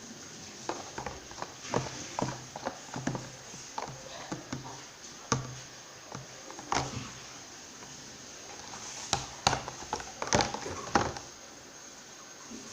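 Glue slime with detergent activator being worked as it gathers, giving irregular sticky clicks and squelches. They come in a flurry over the first few seconds, then one more, then a denser cluster near the end.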